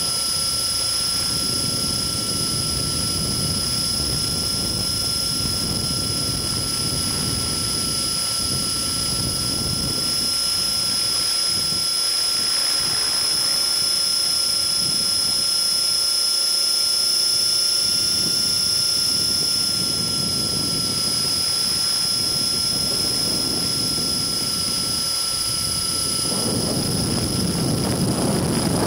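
Onboard sound of an Align T-REX radio-controlled helicopter in flight, heard from the camera mounted on it: a steady high-pitched whine over a constant rushing noise from the rotors and wind. The whine shifts slightly higher about halfway through, then settles back.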